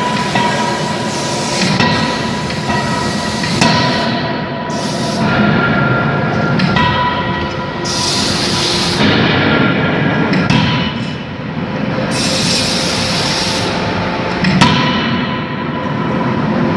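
Fully hydraulic die forging hammer at work on a red-hot workpiece in a closed die: a few sharp metal blows, over steady machinery noise with a faint whine.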